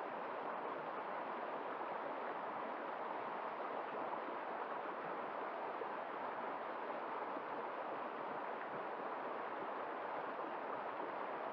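River water running steadily over rocks, a continuous even rushing.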